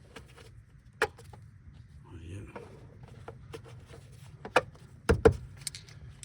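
Sharp plastic clicks and knocks as engine-bay clips and a cover are pressed back into place, the loudest a pair just after five seconds in, over a low steady hum.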